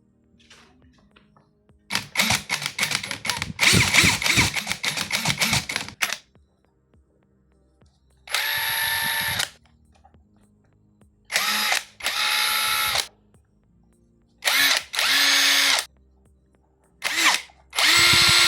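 Dagmara DTD173 cordless impact driver. For about four seconds its hammer mechanism rattles in quick, uneven strokes under load. Then it makes a series of separate trigger pulls, each spinning freely with a steady motor whine and stopping sharply.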